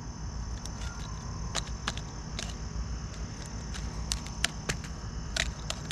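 Garden pruning shears clicking and snipping against a tree stump's bark: a dozen or so sharp, irregularly spaced clicks. Behind them crickets chirp steadily, over a low rumble.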